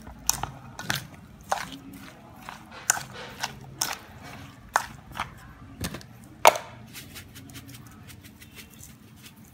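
Metal spoon clinking and scraping against a stainless steel bowl as sugared, mashed fruit pulp is stirred: irregular knocks, the loudest about six and a half seconds in, growing sparse over the last few seconds.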